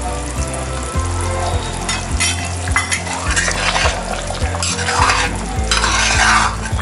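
Thick vegetable gravy bubbling at a boil in a stainless steel pan while a steel ladle stirs it, with louder scrapes of the ladle through the sauce about two, five and six seconds in. The gravy is thickening after cornflour slurry has gone in.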